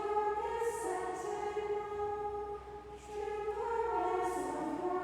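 Nuns' choir of women's voices singing a liturgical chant, held notes moving stepwise, with a brief breath between phrases about three seconds in.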